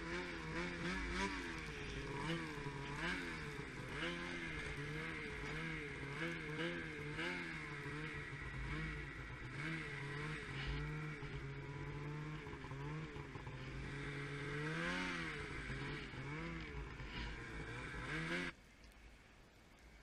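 Snowmobile engine running, its pitch rising and falling again and again with the throttle, then cutting off suddenly near the end.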